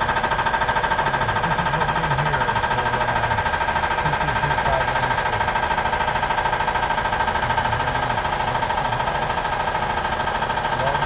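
Air compressor running steadily, with a rapid, even pulsing and a steady whine.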